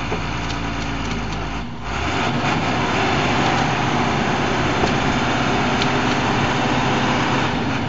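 Jeepney engine running hard. It dips briefly about two seconds in, then holds louder and steady before easing off near the end.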